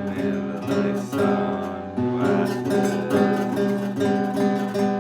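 Acoustic guitar strummed, chords ringing with a fresh strum every second or so.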